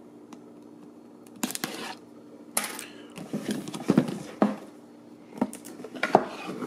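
A cardboard modem retail box being cut open with a razor blade and handled: short scraping rustles of the blade through the seal and cardboard, then irregular clicks and knocks as the box is turned over on the table. A faint steady hum runs underneath.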